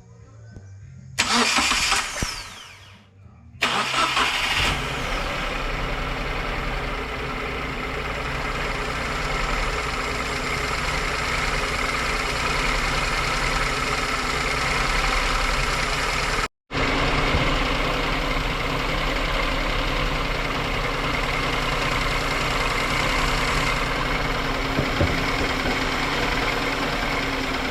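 Daihatsu EF 660cc three-cylinder engine cranked by the starter for about two seconds, then catching and running steadily at idle. A tapping valve train, which the mechanic takes for valves adjusted a bit too loose. The sound cuts out for a moment about two thirds of the way through.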